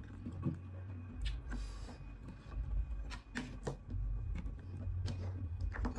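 Metal spoon scraping and tapping on a plate in scattered sharp clicks, over a low steady hum.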